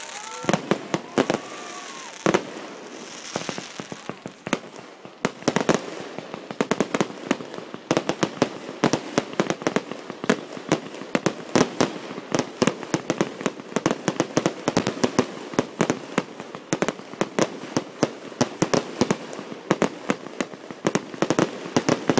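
Fireworks going off: a fast string of sharp pops and bangs with crackling, a few at a time at first, then coming thick and fast from about five seconds in.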